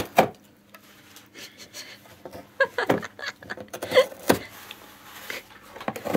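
A cat biting and tearing the torn edge of a cardboard box with its teeth: a few short, sharp rips of cardboard with quiet gaps between.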